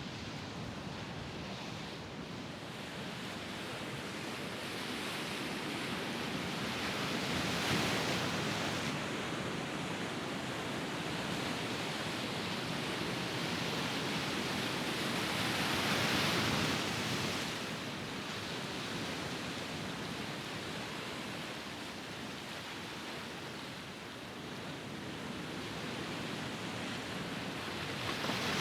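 Mediterranean sea waves washing onto a small beach, a steady hiss of surf that swells louder as waves break about eight seconds in and again about sixteen seconds in.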